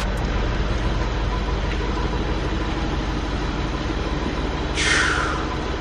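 Steady low rumble of a BMW 650i's V8 engine idling, with a brief falling whoosh about five seconds in.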